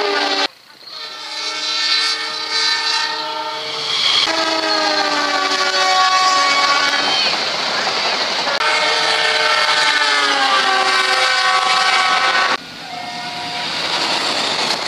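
Indonesian KAI diesel locomotives sounding long, loud S35 warning blasts on their air horns, each a chord of several tones, while the trains pass at speed over a busy level crossing with the rumble and rail clatter of the cars beneath. The sound jumps from one horn blast to the next at hard cuts about half a second in, near 4 s, around 8½ s and around 12½ s.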